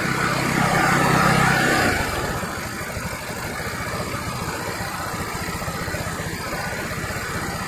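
GY6 150cc scooter's single-cylinder four-stroke engine running a little above idle, then dropping back about two seconds in and settling to a steady idle.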